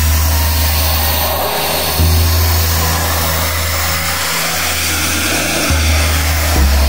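Pressure washer running, its water jet hissing steadily against weathered wooden fence boards as it strips the grime. Deep bass notes of background music change every second or two underneath.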